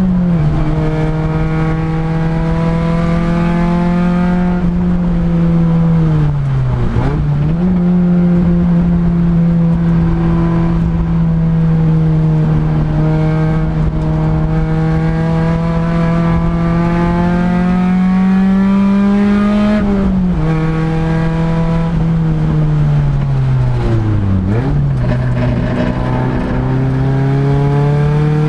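Honda Integra race car's four-cylinder engine heard from inside the stripped, caged cabin, running hard on track. The engine note holds fairly steady, then falls twice as the car slows, about 7 s in and about 24 s in, each time picking back up sharply.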